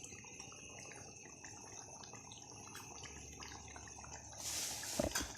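Pot of chicken and tomatoes simmering in their own juices, a faint steady bubbling with small pops. A brief louder hiss comes near the end.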